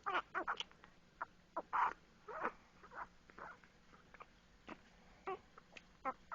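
A baby making a quick, irregular run of short squeaky mouth sounds, some sliding down in pitch.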